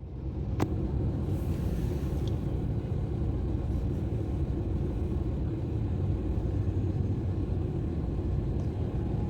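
A car driving, heard as a steady low road and engine rumble, with a single click a little over half a second in.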